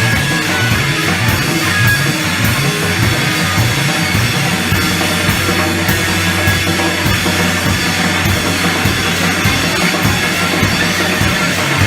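A live rock band playing loud, heavy music: a drum kit keeps a steady beat over a dense wall of guitar and bass.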